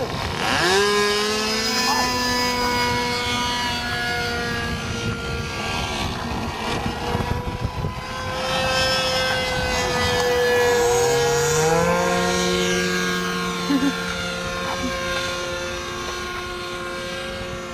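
Radio-controlled Skylark model airplane's engine and propeller running in flight as a steady, high whine, its pitch gliding up sharply about half a second in and shifting again several times as the plane swoops low and climbs.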